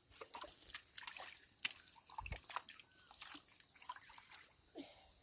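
Faint splashing and dribbling of shallow water, with a scattering of small splashes and clicks.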